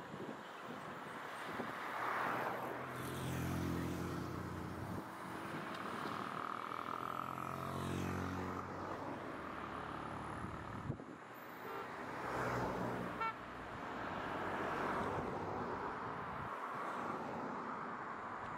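Road traffic: cars and a bus going by one after another, their noise swelling and fading. A bus engine runs low and steady for several seconds in the first half.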